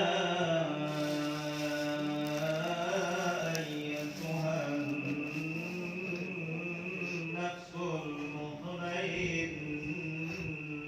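A man's voice chanting a slow, melodic religious recitation, holding long notes that waver in pitch, with a couple of short breaths between phrases.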